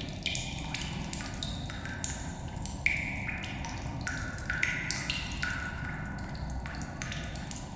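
Water drips falling in a cave, a dozen or so irregular plinks, each with its own ringing pitch and a reverberant tail, over a steady low rumble of wind outside.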